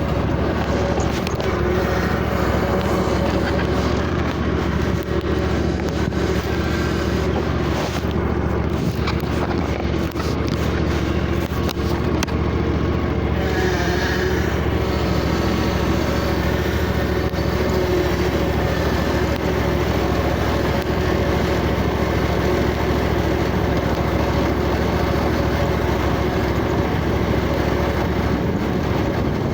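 Riding lawnmower's engine running steadily as the mower is driven along.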